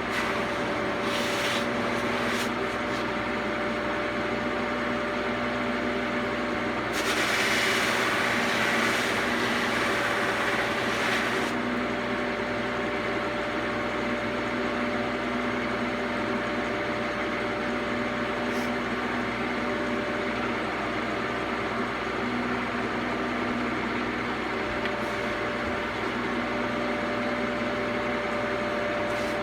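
Electric buffing wheel running with a steady motor hum while a lacquered guitar body is polished on it. A louder rubbing hiss comes in from about seven to eleven seconds in, as the body is pressed harder against the wheel.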